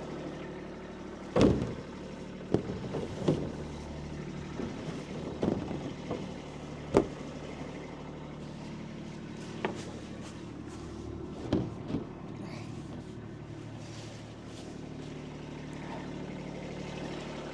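Kubota B2301 compact tractor's small diesel engine running steadily, with a series of sharp clanks and knocks, the loudest about a second and a half in and again about seven seconds in, as the loader handles a firewood tote.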